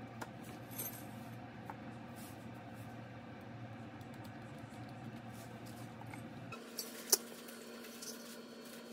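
Light clicks and clinks of hand tools, a marker and a metal speed square and then a steel trowel, handled on a sheet of ceramic penny tiles, over a low steady hum. The loudest is a single sharp clink near the end.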